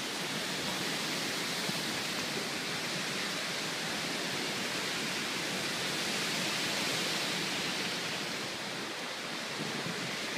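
Steady, even rushing noise of a storm, with no single event standing out.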